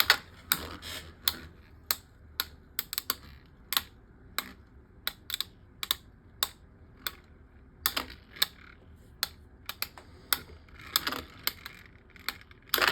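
Two Beyblade Micros plastic tops spinning and colliding in a small plastic stadium: irregular sharp clicks and clacks, a few a second, over a faint steady hum.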